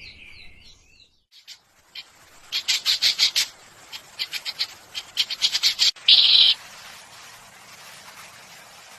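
A bird calling in quick runs of short chirps, several runs in a row, ending in a louder, harsher call about six seconds in.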